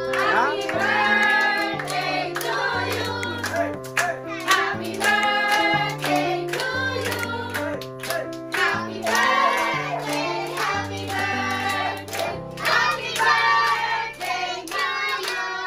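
A group of adults and children singing a birthday song together, over music whose low bass notes change about once a second.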